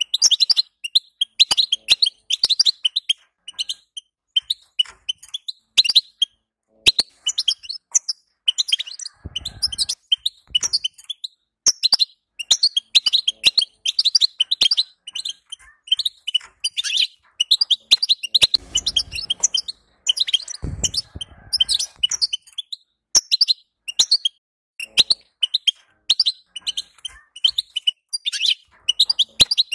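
European goldfinch twittering: fast, chattering runs of high chirps and trills in bursts with short pauses. A few low dull thumps come through about a third and two-thirds of the way in.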